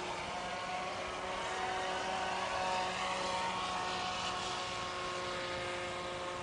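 RC speedboat's 775 brushed electric motor running at speed, a steady high whine with a hiss beneath it as the hull planes across the water.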